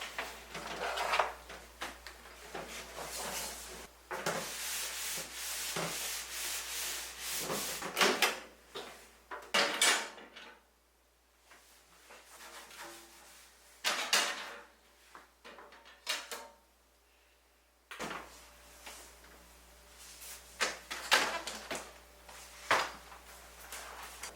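Irregular knocks, clunks and rubbing of household objects being handled, in several short cuts with brief near-silent gaps between them.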